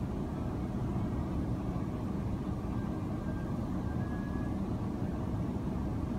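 Steady low rumble of an airliner's engines and rushing air, heard inside the passenger cabin during the descent to land.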